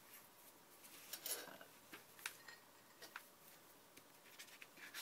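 Faint rustling and a few small taps of paper pages being turned in a hand-bound journal.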